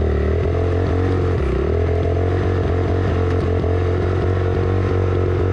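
Suzuki RM-Z250 dirt bike's four-stroke single-cylinder engine running at fairly steady revs while riding, the pitch wavering slightly up and down, heard close to the rear wheel and drive chain.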